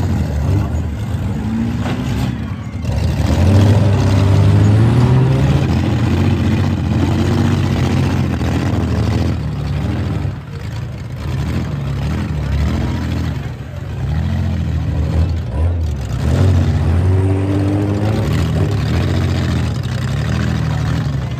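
Demolition derby cars' engines running and revving hard, several at once, their pitch rising and falling again and again as the cars accelerate and back up.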